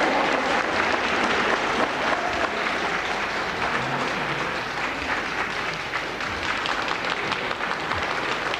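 A hall crowd applauding: the dense, steady patter of many hands clapping, so loud that the vote figure just read out is drowned for some listeners.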